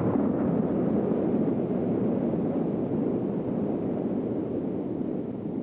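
Steady, loud rushing roar of storm wind, easing off near the end.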